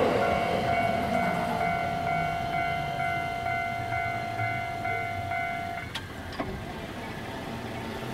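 Japanese level-crossing alarm ringing in a rapid, steady electronic ding-ding that stops abruptly about six seconds in. Under it runs the fading rumble of a JR West 225 series electric train pulling away. A few sharp clicks follow after the alarm stops.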